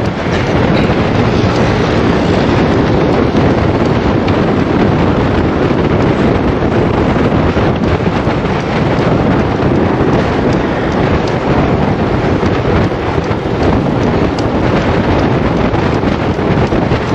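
Steady wind rushing over the microphone of a handlebar-mounted camera on a road bike riding at speed.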